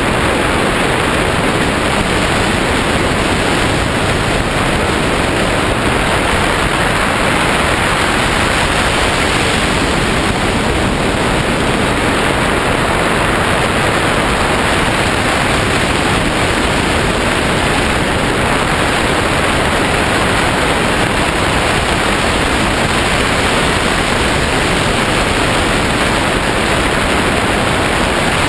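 Steady rush of wind over the microphone of a wing-mounted camera on a hang glider in flight, a constant loud hiss with no change in level.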